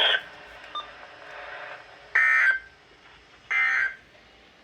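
Two short bursts of EAS/SAME digital data tones from a weather radio broadcast, a harsh electronic warble about half a second long each and about 1.4 seconds apart, over a faint radio hiss.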